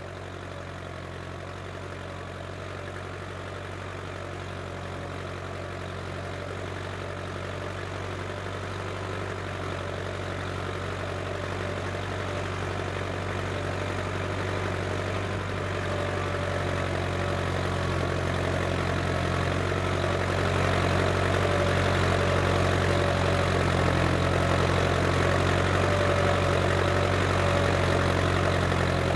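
Case International 885XL tractor's diesel engine running steadily while ploughing, growing gradually louder through the first two-thirds and then holding steady.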